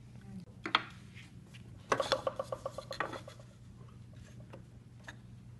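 Hand tools handled on a woodworking bench: one sharp knock, then about a second of fast metallic clicking and rattling, roughly ten clicks a second, and a few faint ticks after.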